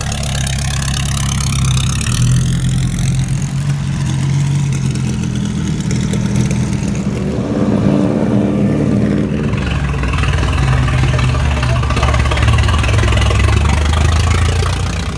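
Vintage racecar engines running loudly, with a deep steady engine note underneath and one car's pitch rising then falling about halfway through as it goes past.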